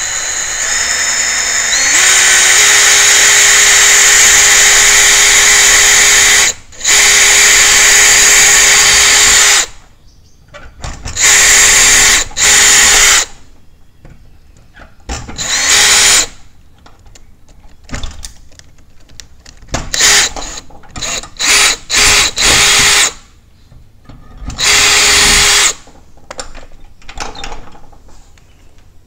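DeWalt cordless drill with a 3 mm bit drilling out an old pop rivet in a sliding door's lock plate. The motor whine rises as it spools up over the first two seconds, runs steadily for several seconds, then comes in shorter stop-start bursts as the trigger is pulsed.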